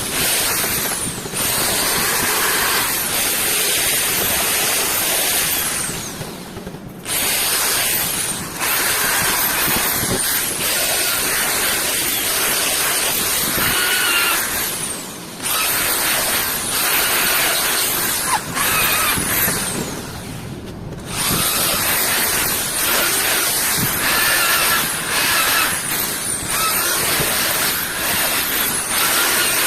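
A power tool running in long, loud, hissing stretches, stopping briefly about three times.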